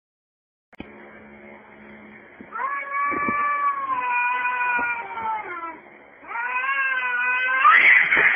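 Two domestic cats caterwauling at each other as they square off to fight: two long, drawn-out yowls, the second turning harsh and noisy near the end.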